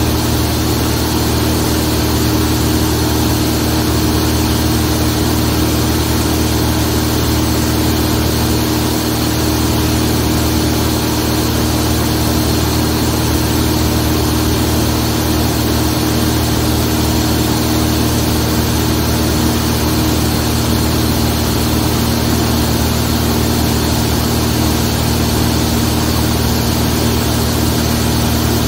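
Zlín 42 light aircraft's piston engine and propeller running at a steady, unchanging drone in flight.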